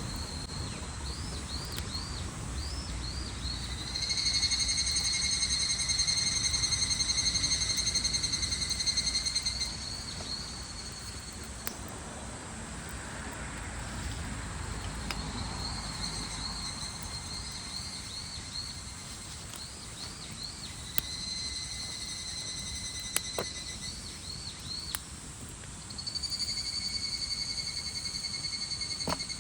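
Outdoor chorus of small calling animals: several long buzzing trills of about three to six seconds each, alternating with runs of quick rising chirps, and a few sharp pops in between.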